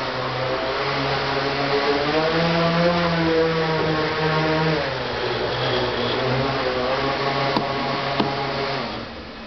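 Model helicopter rotor driven by a brushless electric motor, running with a whine that rises and falls in pitch as its speed changes, then fading near the end as it slows. Two light clicks come shortly before it fades.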